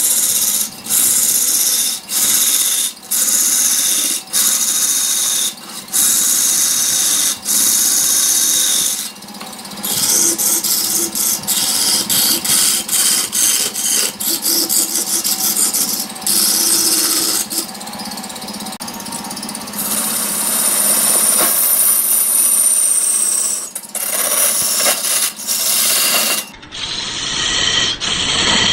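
Hand-held turning tool cutting into a large wooden blank spinning on a wood lathe: a loud, high hiss of shavings tearing off, in repeated strokes broken by short pauses.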